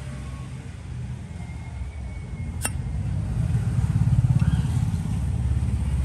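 A motorbike engine running close by, its low pulsing hum growing louder from about three seconds in. A single sharp click about two and a half seconds in.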